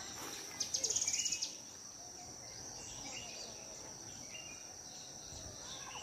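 Forest insect giving a steady high-pitched drone, with a rapid high trill of about a dozen pulses a second lasting about a second near the start, the loudest sound here, and a few short, faint bird chirps later.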